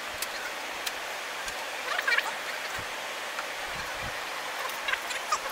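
Steady hissing cabin noise of a Boeing 747-400 in flight, with a few light clinks and knocks of galley items being handled, the loudest cluster about two seconds in.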